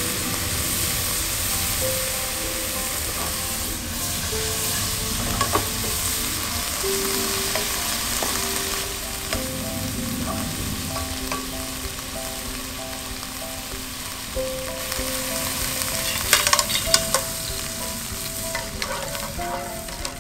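Sliced onion and dried red chillies sizzling in hot oil in a nonstick frying pan while a wooden spatula stirs them, with a few sharp clicks of the spatula against the pan about sixteen to seventeen seconds in. A soft background melody plays under the sizzle.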